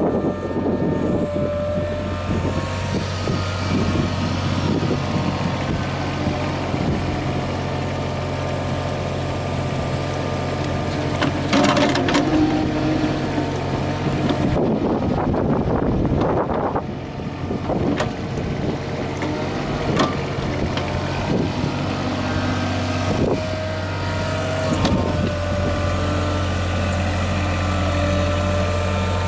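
Mitsubishi MM20CR mini excavator's diesel engine running steadily while the machine works, with scattered knocks from the working equipment through the middle.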